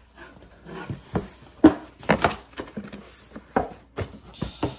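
Cardboard subscription box being opened and its contents handled: a string of irregular knocks and clicks with light rustling between them.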